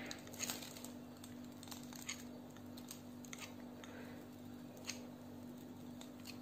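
Faint squishing and soft rustling of a piping bag as meringue cream is piped through a rose tip onto a flower nail, with a few light ticks over a steady low hum.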